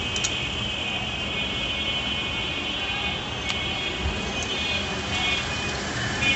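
Steady roadside traffic noise with a high-pitched whine that fades out about halfway and comes back near the end, and a few light clicks.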